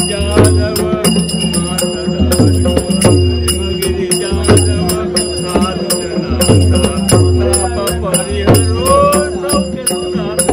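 Traditional temple festival music: a drum struck in an uneven beat about once a second, each stroke dropping in pitch, over jingling bells and a steady held note.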